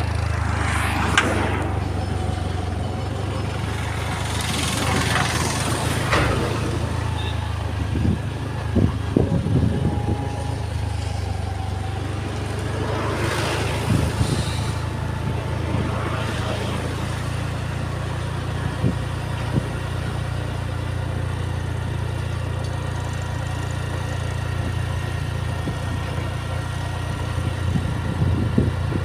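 A vehicle engine runs steadily with a low drone, while several vehicles pass with swelling, fading rushes of noise. A few knocks come about a third of the way in.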